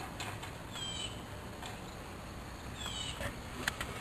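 A bird calling: a short, falling whistle, heard twice about two seconds apart. A few faint clicks near the end.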